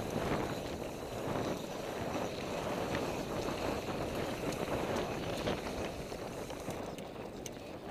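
NS Bikes Soda mountain bike riding fast down a dirt trail: steady rush of knobby tyres on packed dirt and wind buffeting the camera microphone, with scattered short clicks from the bike.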